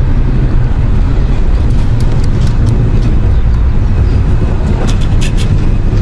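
A loud, steady low rumble with a few faint clicks about two seconds and five seconds in.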